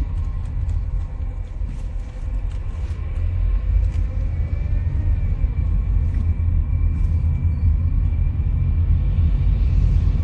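Low, steady rumble of a car heard from inside its cabin, engine and road noise, getting slightly louder after about three seconds.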